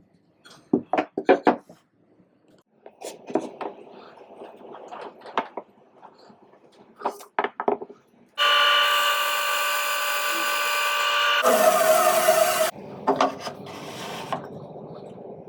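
Wood pieces being handled and knocked together, then a bandsaw running and cutting for about four seconds. Its tone changes partway through and it cuts off suddenly, followed by a few more knocks.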